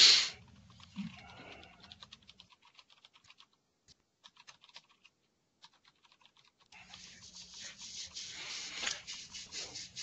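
Typing on a computer keyboard: quick, irregular key clicks. There is a brief loud rush of noise right at the start, and a hiss under the clicks in the last few seconds.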